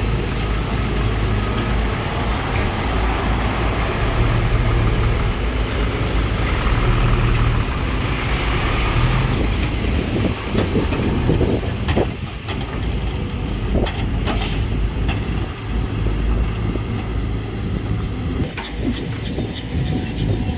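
Heavy diesel construction machinery, a dump truck and hydraulic excavators, running with a steady low engine drone. Scattered clanks and knocks come in from about ten seconds in.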